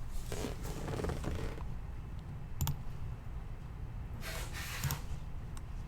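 Quiet room noise with a steady low hum, soft rustling twice, and a single sharp click about two and a half seconds in.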